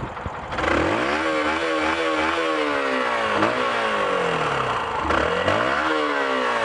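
Yamaha YBR125's warm single-cylinder four-stroke engine being revved up and let fall back several times, with a steady exhaust note between the blips.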